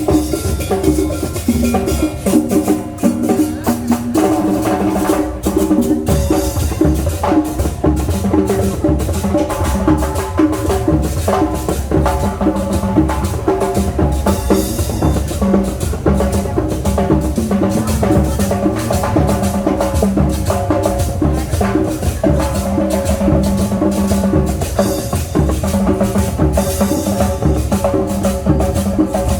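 Marching band playing live: drums and shakers keep a fast, steady dance beat under a sustained melody.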